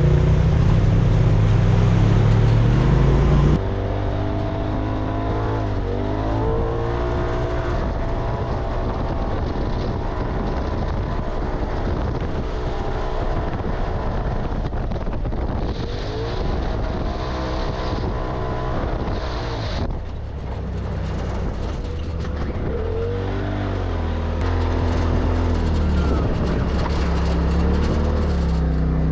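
Side-by-side UTV engines running and revving, their pitch rising and falling. About three and a half seconds in the sound changes abruptly to a different engine.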